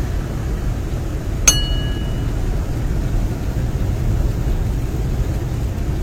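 Steady low rumble of a vehicle driving along a highway, heard from inside. About a second and a half in, one short metallic clink rings briefly.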